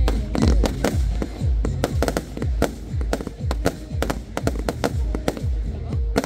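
Aerial fireworks display going off: a rapid string of sharp bangs and crackles, several a second, many followed by deep booms of shells bursting, with music playing underneath.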